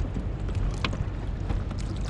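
Wind on the microphone and water moving against a fishing kayak's hull, with a sharp knock a little under a second in and a few fainter clicks.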